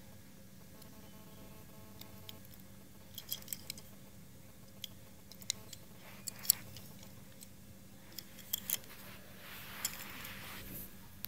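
Handling noise from a die-cast toy car being turned over in the fingers: scattered light clicks and taps, the sharpest about six and a half seconds in, and a stretch of soft rustling near the end, over a faint steady hum.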